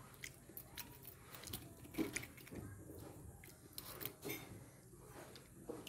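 Faint eating sounds of raw sea urchin being eaten by hand: chewing, with scattered small clicks and taps as the spiny shells and food are handled, the sharpest tap about two seconds in.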